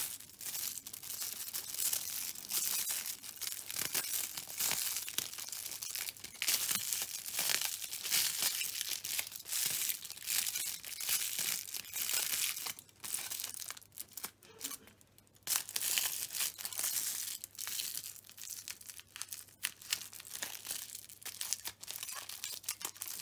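Aluminium kitchen foil being crumpled and wound around wire, an irregular crinkling with a short lull about two-thirds of the way through.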